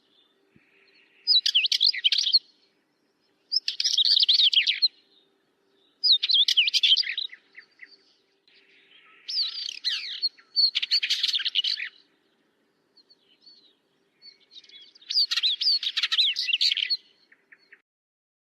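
A songbird singing: six short phrases of rapid, quickly changing high notes, each about a second or more long, with brief pauses between them.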